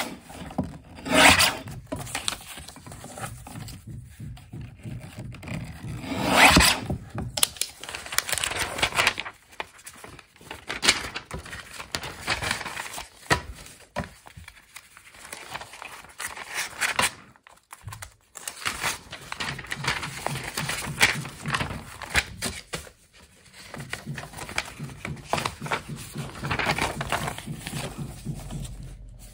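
Paper being rubbed and scraped by hand in irregular strokes, with a few louder rasping strokes near the start and about six seconds in.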